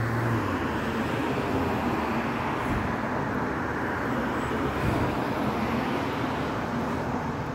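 Road traffic noise: a vehicle running along the street as a steady wash of tyre and engine noise, easing off slightly near the end.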